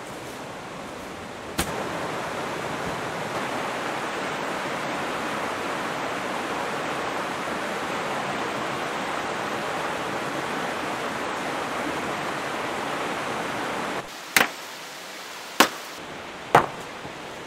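Mountain stream rushing over boulders, a steady even rush. It stops abruptly near the end, and three sharp knocks follow about a second apart.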